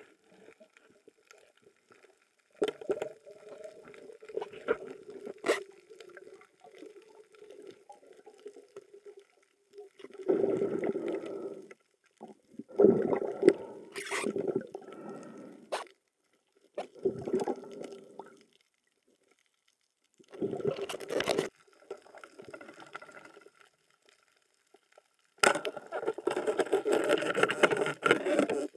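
Muffled water sloshing and gurgling picked up by a camera underwater, coming in irregular bursts a second or two long with quiet gaps between and a few sharp clicks.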